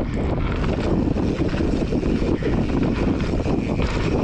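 Steady rushing noise of wind buffeting the camera microphone, mixed with the rumble and rattle of a mountain bike rolling fast over a packed-dirt trail.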